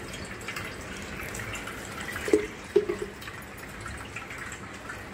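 Water trickling and dripping through fresh chenna in a cloth-lined strainer as it is rinsed with plain water to wash out the vinegar. Two sharp knocks come about half a second apart a little before the middle.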